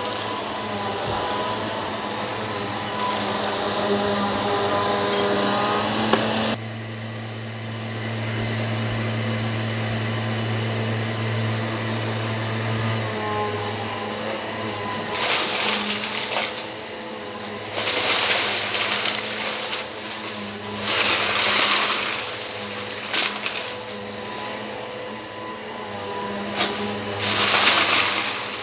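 Eureka PowerSpeed upright vacuum cleaner running steadily, its motor tone shifting about six seconds in. In the second half there are several loud, brief surges of noise as rock salt and lentils are sucked up.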